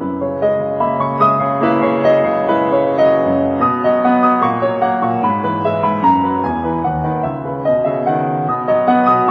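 Piano music playing: a steady run of melody notes over lower held notes.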